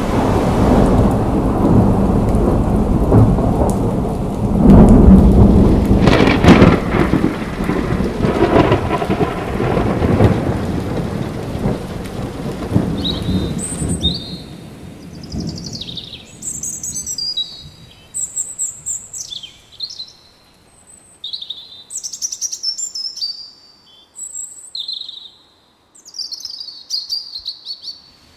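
Thunderstorm soundscape: steady rain with rolling thunder and loud claps about five and six seconds in. About halfway through the storm drops away to birdsong, short chirps and gliding whistled calls.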